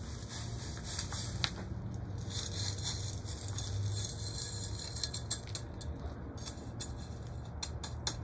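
Gritty rustling and trickling of granular bonsai soil being worked into a pot, with a run of small sharp clicks and taps in the second half.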